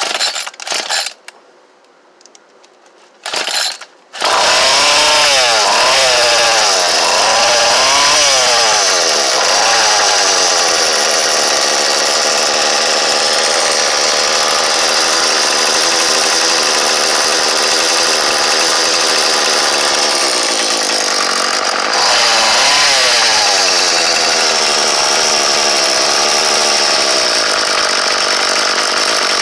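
Small 32cc two-stroke engine from a Troy-Bilt TB320 leaf blower, running on a newly fitted fuel line and primer bulb. After two short bursts it catches about four seconds in and runs loud and continuously at high revs. Its pitch swings up and down several times soon after it catches and again about two-thirds of the way through.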